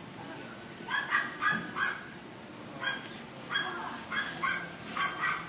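Puppies yapping: short, high-pitched yaps in quick clusters, starting about a second in.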